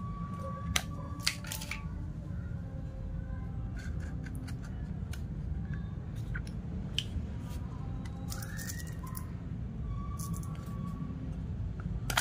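Plastic airsoft pistol being handled in the hands: scattered light clicks and taps, a few at a time, over a steady low background hum.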